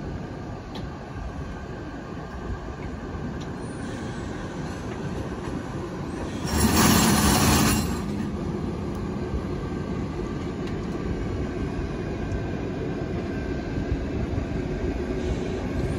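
EP2K electric locomotive running steadily as it creeps up to the passenger cars to couple. About six and a half seconds in comes a loud hiss lasting about a second and a half that cuts off sharply.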